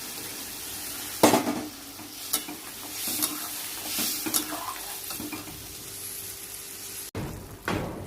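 Vegetables sizzling in a cooking pan while a spatula stirs them, knocking and scraping against the pan several times.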